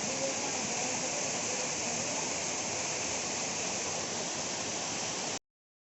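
Waterfall rushing steadily, cutting off abruptly near the end.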